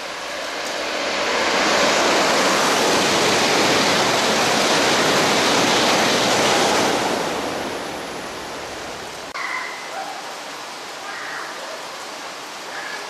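E2 series Shinkansen passing at speed on a rain-soaked track, throwing up spray: a broad rushing noise swells over a second or so, holds for about five seconds, then fades away. The steady hiss of rain remains.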